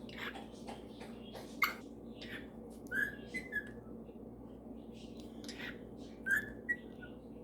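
Pet parrots chirping and giving short whistled notes in scattered bursts, with sharper calls about a second and a half, three seconds and six seconds in.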